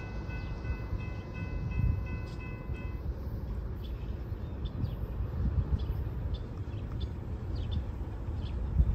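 Distant train: a steady low rumble, with a faint held chord of several steady tones that cuts off about three seconds in.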